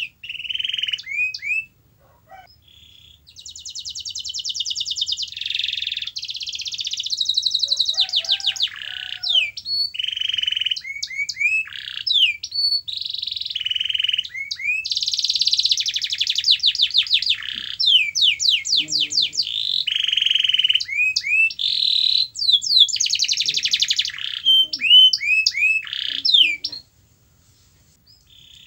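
Domestic canary singing a long, fast song of rapid trills and rolling phrases mixed with short sweeping chirp notes. The song breaks briefly about two seconds in and stops shortly before the end.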